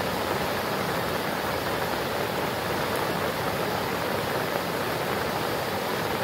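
Swollen, fast-flowing floodwater rushing steadily, a constant even roar of moving water with no breaks.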